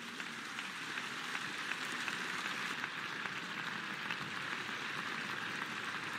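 Large crowd applauding: a dense patter of many hands clapping that swells over the first second and then holds steady.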